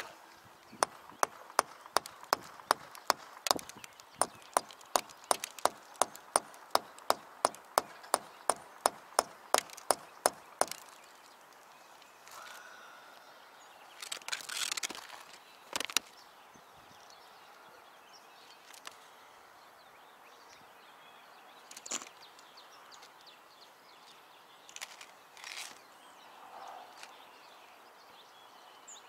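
Claw hammer driving an eye hook into a brick chimney: a quick even run of sharp hammer strikes, about two and a half a second, stopping after roughly ten seconds, then a few scattered knocks.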